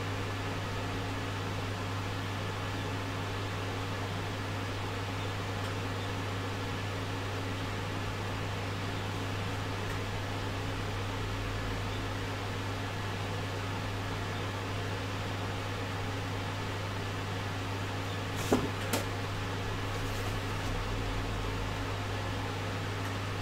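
A steady low hum in the room, with two short clicks late on.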